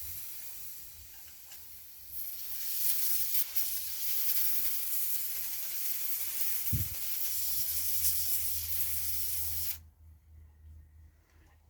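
Can of compressed air spraying in one long, steady hiss that grows stronger about two seconds in and cuts off abruptly near the end, blowing dust off the phone. A short low thump sounds midway.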